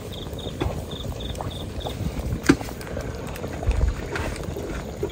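An insect, likely a cricket, chirping in short high pulses, about three a second, for the first two seconds. Underneath is a low rumble, with a few scattered knocks, the sharpest about halfway through.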